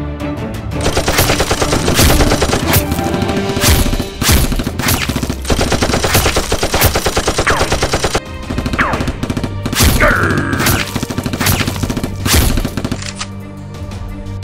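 Gunfire sound effects: rapid automatic bursts packed closely for the first eight seconds or so, then sparser single shots.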